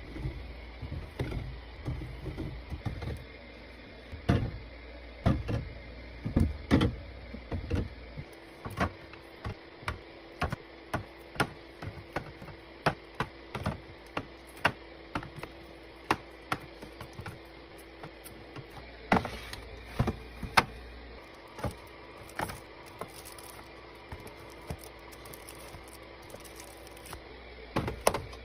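Items being set down and arranged during a restock: a run of sharp taps and clacks, one after another at roughly one to two a second, over a faint steady hum.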